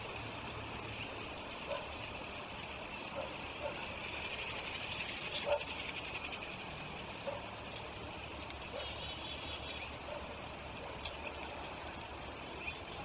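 River water running steadily past the bank as a constant rushing noise. A few short, faint animal calls and brief trills are scattered through it.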